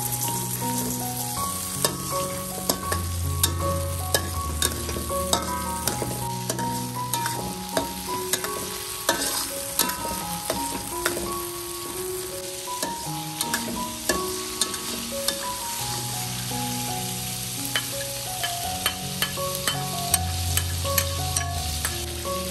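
Lemongrass and curry leaves frying in hot oil in a wok, sizzling steadily, while a metal spoon stirs and scrapes against the pan with frequent sharp clinks. Soft background music with a bass line plays underneath.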